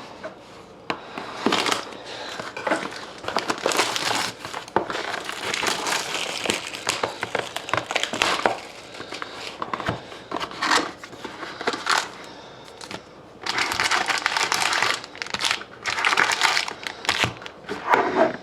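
Plastic wrapping crinkling and tearing in irregular bursts as a sealed box of trading cards is unwrapped and opened, with the loudest stretches near the end.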